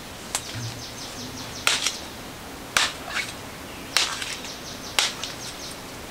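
A machete chopping into the trunk of a đao palm: about five sharp, heavy strokes a little over a second apart, some followed by a lighter knock, as the blade bites into the fibrous wood to fell the palm.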